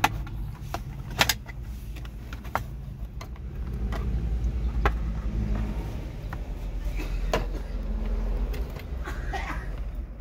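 Plastic centre console trim of an older Honda CR-V being worked loose and lifted off around the gear lever: a series of separate clicks and knocks of hard plastic, the sharpest about a second in, over a steady low rumble.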